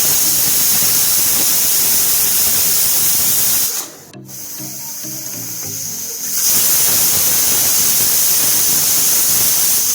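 Pressure cooker on the stove releasing steam through its whistle: two long, loud hissing blasts, the first breaking off about four seconds in and the second starting a couple of seconds later. Each whistle marks pressure built up inside, and the whistles are counted to time the cooking. Background music with a beat plays underneath.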